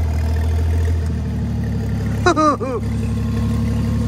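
Oliver tractor engine running with a straight exhaust pipe, a steady low note that shifts about a second in. A short high squeak-like sound cuts in briefly about two seconds in.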